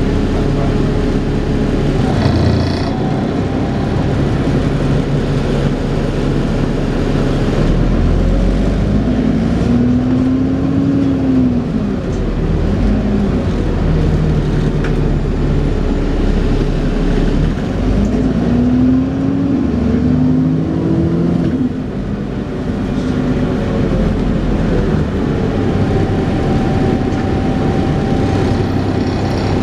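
Dennis Trident 2 double-decker bus with an Alexander Enviro 400 body under way. The engine note rises and falls in pitch twice as the bus accelerates and changes gear, over the steady vacuum-cleaner-like whine known as 'hoovering'.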